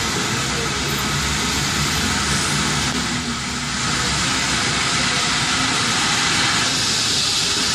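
Helicopter running, its engine and rotor making a steady rush with low pulsing underneath; the high hiss grows louder about four seconds in.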